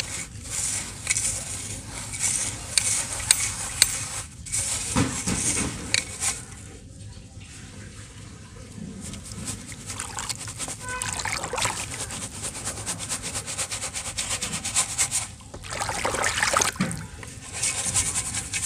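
Hands rubbing grey dirt through a round sieve held over a tub of water, the grains showering onto the water's surface with a dense, fine crackle and hiss that swells louder a few times.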